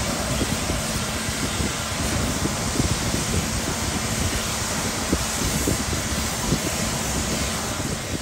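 High-pressure water spraying inside an empty trailer box during an interior wash: a steady hiss, with water splashing and running off the rear of the trailer.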